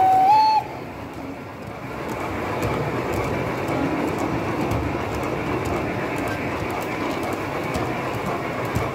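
A large-scale model freight train rolling past on its track, the wagons making a steady rolling clatter over the rails. A whistle tone from the model steam locomotive cuts off about half a second in.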